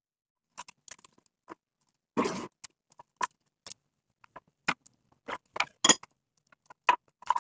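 Scissors snipping leaves into small pieces: irregular short, sharp snips and clicks, with one louder, slightly longer rustling knock about two seconds in.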